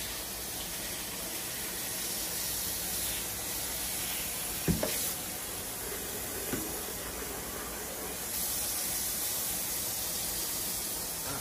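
Tap water running with a steady hiss, as a blender jar is filled. There is a sharp knock near the middle, and the hiss grows a little stronger about eight seconds in.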